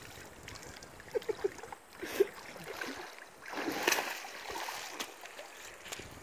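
Feet splashing and sloshing through shallow river water as a person wades toward the bank. The biggest splash comes about four seconds in.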